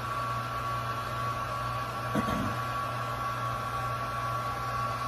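A small electric blower motor running with a steady hum and hiss, and one brief short sound about two seconds in.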